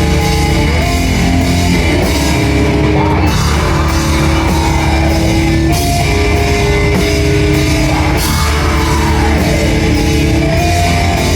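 Loud rock music with drum kit and distorted electric guitar, held notes over a steady beat.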